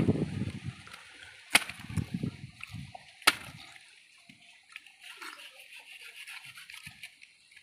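A billhook knife chopping into a bunch of tender palm fruits (nungu). There are two sharp strikes about a second and a half apart, then fainter cutting sounds.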